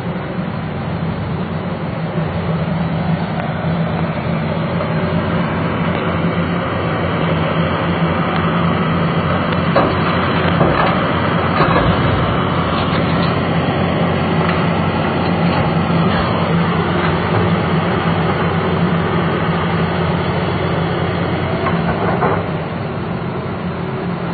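Liebherr crawler excavator's diesel engine running steadily under hydraulic load as it digs, swings and loads. About ten to thirteen seconds in there is a spell of knocks and rattle as a bucket of soil drops into the steel bed of the dump truck.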